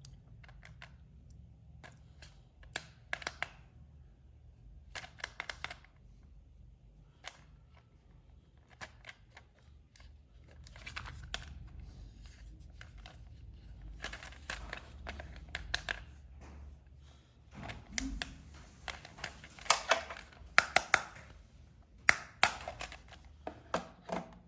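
Hands handling toy packaging and plastic parts: irregular clicks, rustles and crinkles, with a few sharper, louder clicks near the end.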